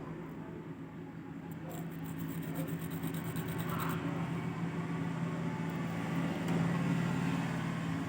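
A steady low motor hum that slowly grows louder, with a few faint ticks in the first half.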